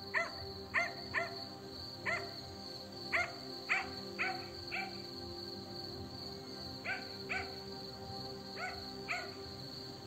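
Short, rising animal calls repeated about a dozen times, singly or in quick pairs, with a pause midway, over a steady high-pitched chirring like night insects.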